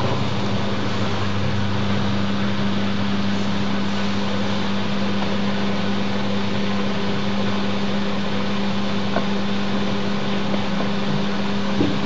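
Two Siemens Siwamat front-loading washing machines, an IQ 716 and a 7163, running side by side: a steady low hum over an even, unchanging wash of machine noise.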